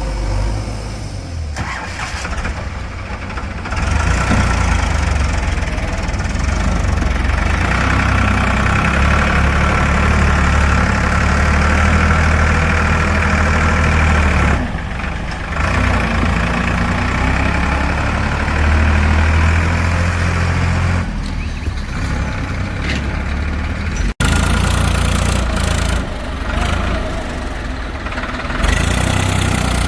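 Diesel engine of a JCB 3DX backhoe loader working under load while it digs and loads mud, picking up speed a few seconds in and easing off briefly twice, with a sudden break near the end.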